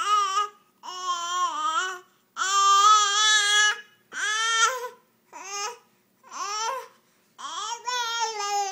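Baby babbling in a string of about seven drawn-out pitched vocal sounds with short pauses between them, his fingers in his mouth.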